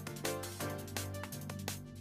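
Background music with a steady electronic beat over sustained bass notes.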